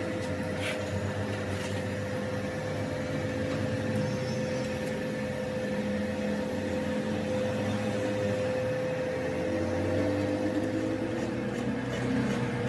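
Metal lathe running steadily with a constant hum and a held whine, with a couple of faint clicks about a second in.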